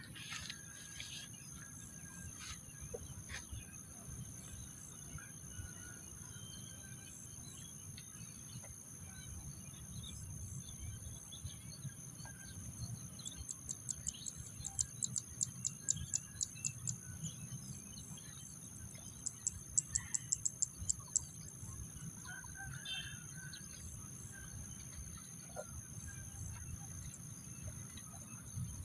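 Rice-field ambience: a steady high insect drone with scattered bird chirps over a faint low rumble. There are two spells of rapid chirping, about halfway through and again a few seconds later.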